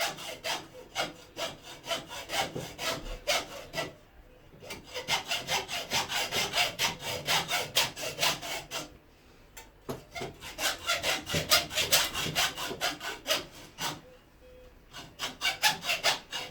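Hacksaw scoring round the steel wire armour of an SWA cable along a taped line, in four runs of quick back-and-forth strokes, about three or four a second, with short pauses between them.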